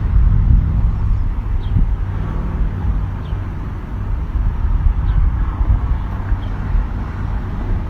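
Steady low rumble of road vehicle noise, with a few faint, short, high chirps now and then.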